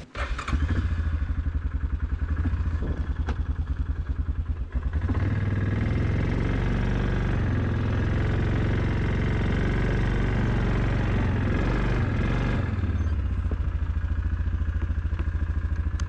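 ATV engine running with a pulsing low beat, then, about five seconds in, a steadier, louder drone as the machine is driven along a dirt path. Near the end it drops back to the pulsing beat.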